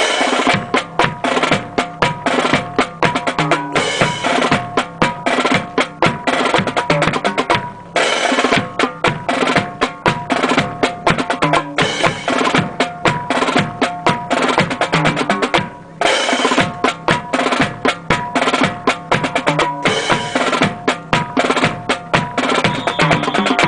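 A marching drum cadence on snare and bass drum, with fast rolls and steady beats, breaking off briefly about 8 and 16 seconds in.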